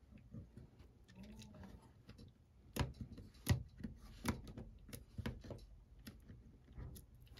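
Irregular light clicks and taps of a small plastic pry tool prying against a Canon EOS M camera's body, with a few louder clicks around the middle.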